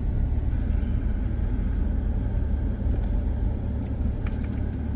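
Steady low rumble of a car on the move, engine and road noise heard from inside the car, with a few light clicks near the end.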